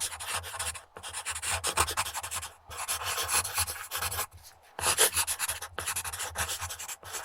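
Pencil scribbling quickly on paper laid on a wood desk: rapid scratchy strokes in runs, with short pauses about a second in, near the three-second mark and a longer one past four seconds.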